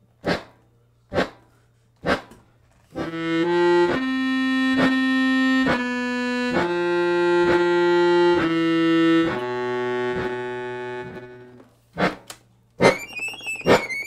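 Beltuna piano accordion playing: sharp knocks about once a second keep a slow steady pulse. About three seconds in, sustained chords join them and change a few times before fading out. Near the end a dense, wavering cluster of high treble notes is struck with the hand.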